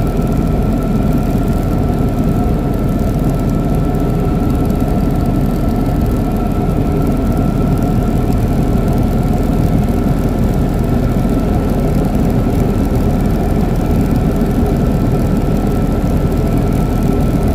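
Helicopter engine and rotor noise, steady and loud, with a thin high whine running through it.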